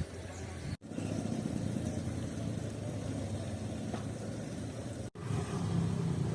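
Steady low engine rumble, as of vehicles running, cut off abruptly twice: about a second in and near the end.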